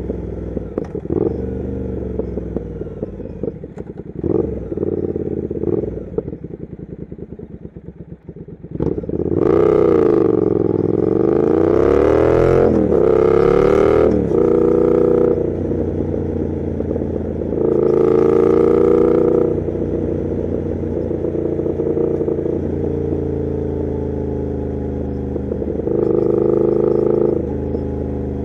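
Triumph Thruxton RS 1200 cc parallel-twin engine through a Weslake exhaust, heard while riding. For the first eight seconds it winds down on a closed throttle with scattered pops and crackles. About nine seconds in it pulls away hard, revving up and falling back through the gears, then settles into a steady cruise with two more bursts of throttle near the middle and near the end.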